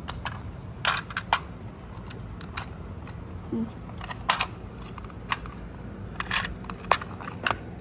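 Small plastic toy dollhouse and its tiny plastic furniture being handled by hand: irregular light clicks and taps of plastic pieces knocking together.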